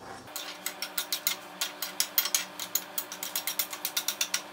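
Metal spoon clicking and scraping rapidly against a steel kadai, about seven strokes a second, as masala is worked into a paste in the pan.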